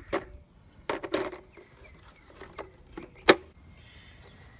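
Hard plastic knocks and clicks from a cordless-mower lithium battery pack being handled against its charger, with one sharp, loud click about three seconds in.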